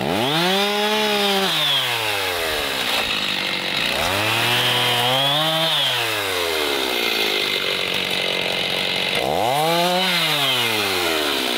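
Gas chainsaw cutting through a tree limb. The engine revs up and drops back three times, and between the revs there is the rougher, steadier sound of the chain cutting into the wood.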